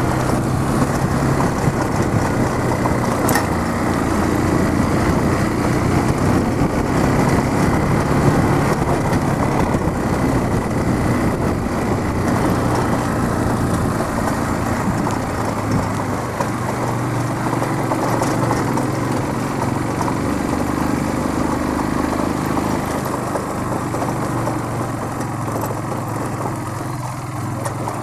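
Motorcycle engine running steadily as the bike is ridden, with road noise, its level easing slightly near the end.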